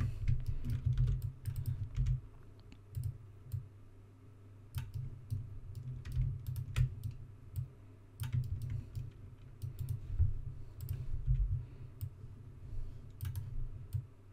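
Computer keyboard keys tapped in irregular runs of clicks, with quieter gaps in between, as editing shortcuts are pressed.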